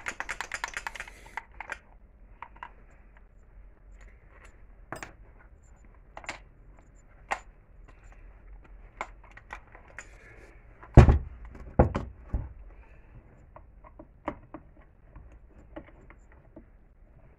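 Metal parts of a stripped Kalibr chainsaw engine, its crankcase and crankshaft, clicking and knocking as they are handled and turned on a workbench. A quick run of clicks comes in the first second or so, and three heavier knocks come a little past the middle.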